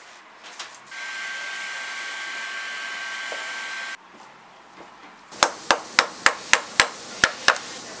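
An electric blower runs steadily with a thin whine for about three seconds and cuts off abruptly. About a second and a half later a shoemaker's hammer taps the leather upper down over the shoe last, about eight quick sharp taps.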